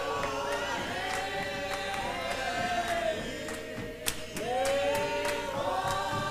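Hymn choir of men and women singing unaccompanied, with long held notes that slide slowly between pitches. A single sharp hand clap cuts in about four seconds in.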